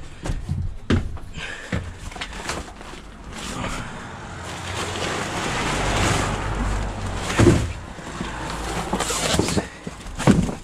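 Boxes and crates being shoved and lifted around in the back of a delivery van, with scattered knocks and thuds, the loudest about seven and a half seconds in. Midway a broad rush of noise with a low rumble swells and fades.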